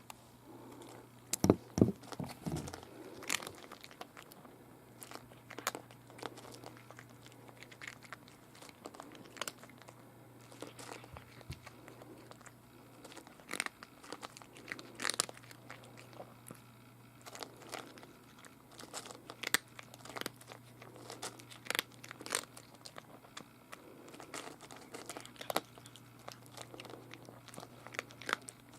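Black cat crunching dry cat food: a run of irregular sharp crunches, with a few louder knocks about two seconds in.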